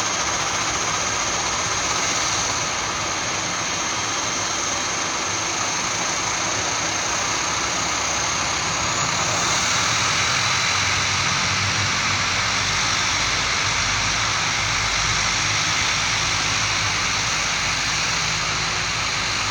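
Turboprop airliner engines running steadily on the ground before takeoff: a loud, even rush with a high whine on top that shifts slightly about nine seconds in.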